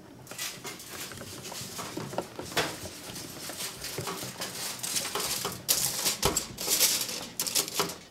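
Irregular rustling, scraping and knocking from a camera being picked up and handled, with louder bursts of rustle several times and the most from about six to eight seconds in; it cuts off abruptly at the end.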